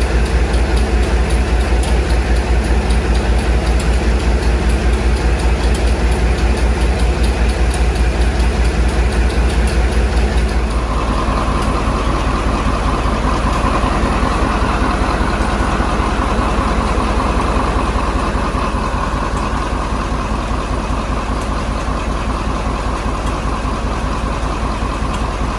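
Maybach MD870 V16 diesel engine of a Class 35 Hymek locomotive idling with a steady, fast low pulse. About ten seconds in the sound changes, the low pulse thinning and a steady whine coming in.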